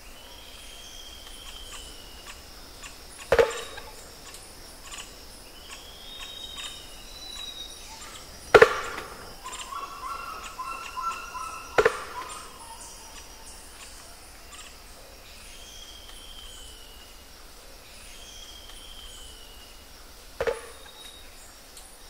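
Tropical forest ambience with several birds giving drawn-out whistles. Four sharp knocks come at irregular intervals a few seconds apart, the loudest a little before halfway.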